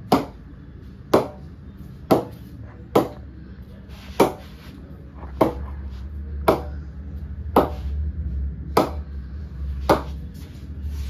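Kashmir willow cricket bat (Gray-Nicolls Cobra Smash) being ping-tested by bouncing a cricket ball on its face: about ten sharp wooden knocks, roughly one a second, each with a short ring.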